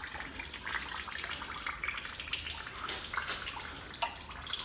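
Used engine oil pouring in a steady stream from a Ford Explorer's open drain-plug hole into a drain pan.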